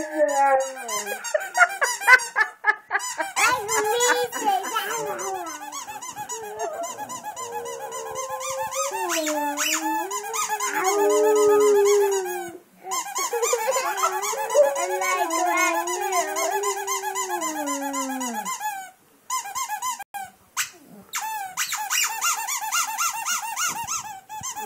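Boxer dog howling along to a squeaky toy being squeezed over and over. The howl comes in long notes that slide up and down in pitch, with short breaks, and trails off a few seconds before the end, leaving mostly squeaking.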